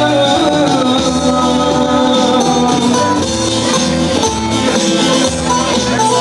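Live Greek popular song played by a small band: acoustic guitar and a long-necked plucked lute carry a melody of held notes.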